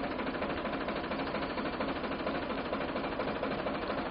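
Tractor engine running steadily and driving a tractor-mounted agricultural spray pump (Nataraj Super) through its PTO shaft. The pump makes an even, fast mechanical clatter that doesn't change.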